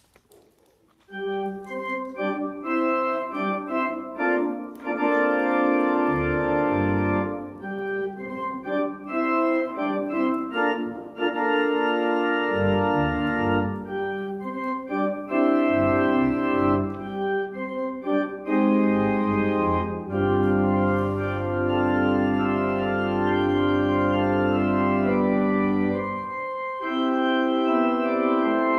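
Organ playing slow, sustained chords. It begins about a second in, and deep bass pedal notes join around six seconds in.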